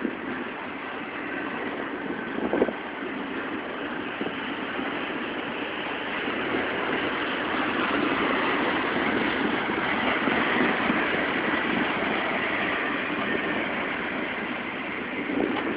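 Double-stack container train's well cars rolling past, steel wheels running steadily on the rail. The noise swells in the middle and eases toward the end, with a single knock about two and a half seconds in.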